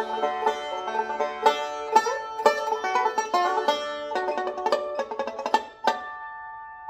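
Bishline Rosemary five-string resonator banjo played with fast picked notes. Just before six seconds it ends on a last struck chord that rings out and fades.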